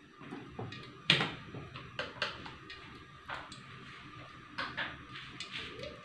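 Scattered knocks and clatter of kitchen items being handled, the loudest about a second in, over a faint steady hiss.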